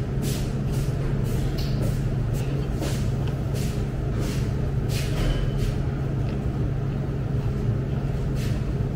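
Eating with a metal spoon from a stainless-steel bowl: irregular soft clicks and clinks of the spoon, with chewing, over a steady low hum.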